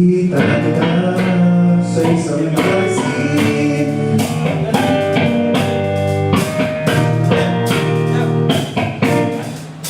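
Guitar music: a run of plucked notes and strummed chords, starting abruptly and dropping away near the end.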